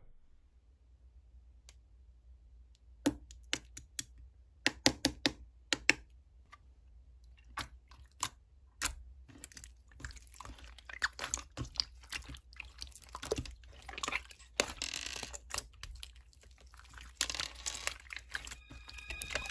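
Close handling sounds: sharp separate clicks and taps for the first several seconds, then a denser run of crinkling and crunching.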